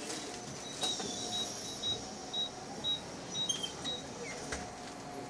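Short high electronic beeps repeating about twice a second inside a city bus waiting at a stop with its doors open, over the low steady background of the bus.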